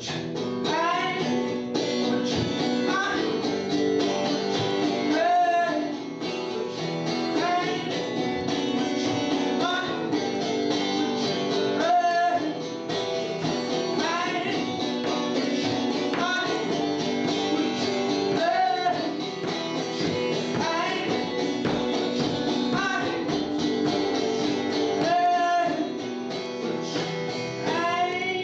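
A live acoustic song: guitar playing steadily, with a voice singing short, sweeping phrases over it every couple of seconds.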